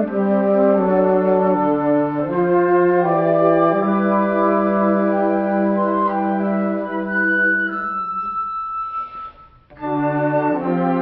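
Organ music: slow, held chords that change every second or so, thinning to a single sustained high note near the end, then a brief pause before the chords resume.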